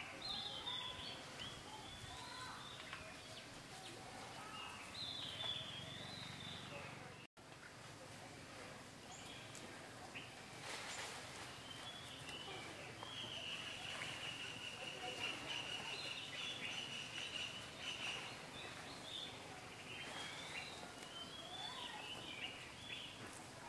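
Outdoor woodland ambience with birds calling: wavering high chirps and whistles throughout, and one long, steady, high-pitched call held for several seconds in the second half. The sound cuts out briefly about seven seconds in.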